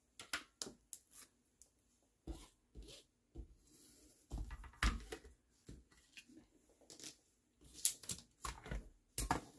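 Hands handling a plastic stamping platform and small card pieces on a craft mat: scattered taps, knocks and paper rustles, with a few sharper knocks late on as the platform is set down.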